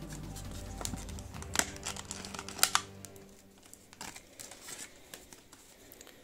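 Clear plastic blister packaging crinkling and clicking as it is handled, with two sharp snaps about one and a half and two and a half seconds in. Background music plays underneath and ends about three seconds in.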